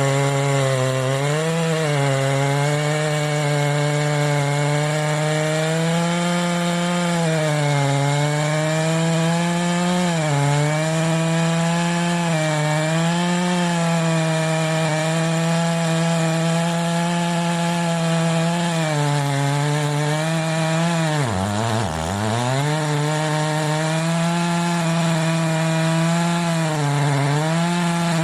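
Ported Stihl MS880 two-stroke chainsaw with a dual-port muffler running at high revs while cutting wood. The engine pitch dips and recovers every couple of seconds as the chain loads up, and about 21 seconds in it bogs down hard before climbing back to speed.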